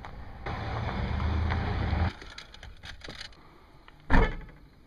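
Camera and microphone handling noise: rubbing and crackling for about a second and a half that stops abruptly, a few light clicks, then one loud thump about four seconds in.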